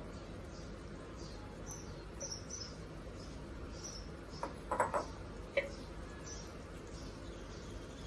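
Fish curry simmering in a kadai on a gas hob: a faint steady hiss with soft high chirps about twice a second, and a short cluster of knocks about halfway through.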